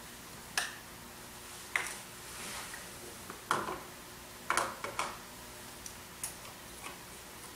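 Small plastic lab items being handled: a plastic sample container and a syringe clicking and knocking, about seven separate sharp clicks with uneven gaps, the loudest about three and a half and four and a half seconds in.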